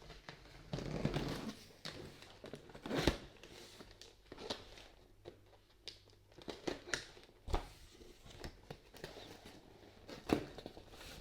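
A blade cutting open a cardboard box, then the cardboard and packaging being pulled open and crinkled, with several sharp knocks and clicks as the contents are handled.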